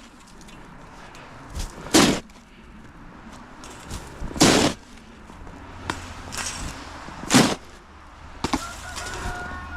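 Snow shovel scooping and throwing snow in sharp strokes, about one every two and a half seconds. Near the end a rooster crows faintly.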